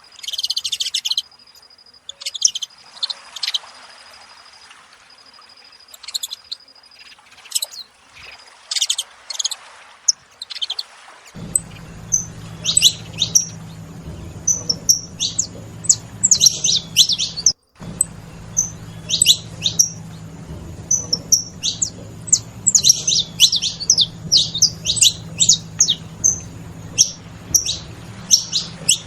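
Several saffron finches chirping: a steady run of short, high calls that crowd together more densely in the second half. A faint low hum runs underneath from about a third of the way in.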